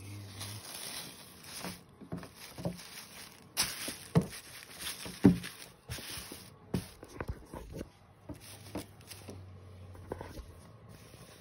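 Polyester mesh basketball jersey being handled and shifted about, with irregular rustling of the fabric and scattered knocks and clicks of handling, two of them louder about four and five seconds in.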